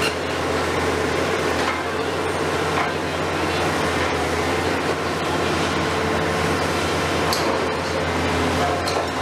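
Komatsu PC490 long-front demolition excavator's diesel engine running steadily under load as it works its long boom, with a few short knocks and crunches of concrete and debris being broken.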